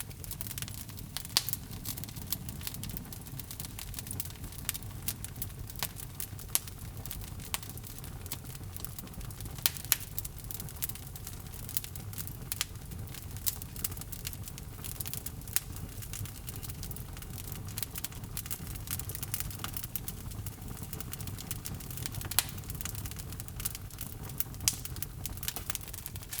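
Wood fire burning in a fireplace: a steady low rumble with constant irregular crackling of the burning logs and occasional sharper pops.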